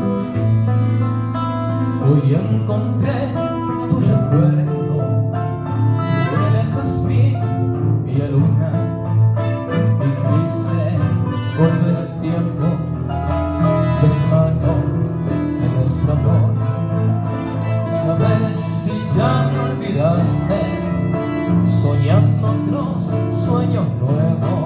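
Live vals played on acoustic guitars, accordion and keyboard, with a male voice singing over it.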